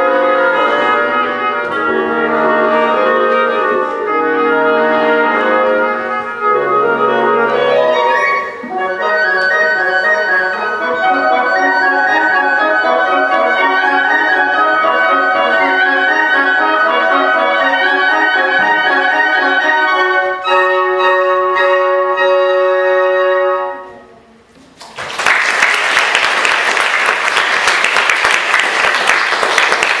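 Woodwind quintet (flute, oboe, clarinet, French horn, bassoon) playing a piece that closes on a held final chord and stops about 24 seconds in. After a moment's pause the audience applauds.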